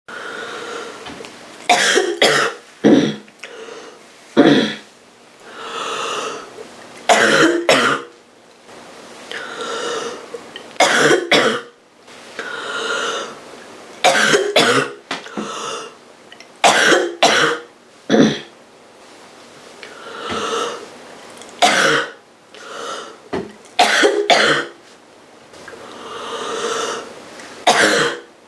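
A girl coughing roughly from a cold: bouts of two or three harsh coughs every few seconds, with a long breath drawn between the bouts.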